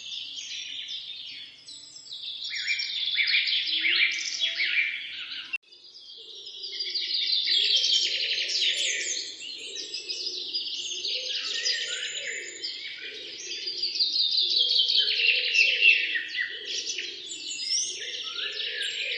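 Several songbirds chirping and trilling together in a dense chorus. It breaks off abruptly about five and a half seconds in and starts again, with a fainter, lower sound running underneath from then on.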